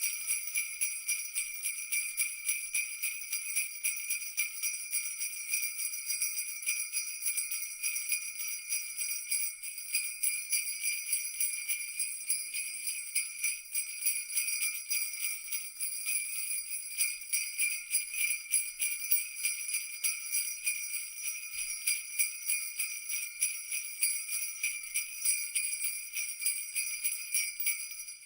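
Jingle bells (sleigh bells) shaken continuously in a fast, bright, unbroken jangle, stopping near the end with a short ring-out.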